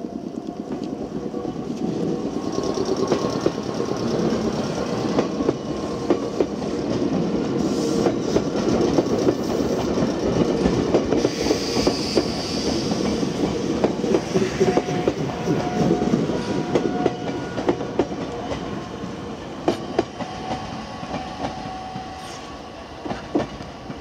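Meitetsu 100 series electric train pulling out of a station: its wheels clack over the rail joints, under a steady tone from the train that sounds like a fire alarm. The sound builds as the train passes and fades as it pulls away.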